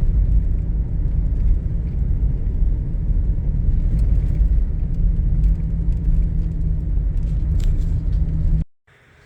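Car driving, a loud steady low rumble of engine and road noise, which cuts off suddenly near the end.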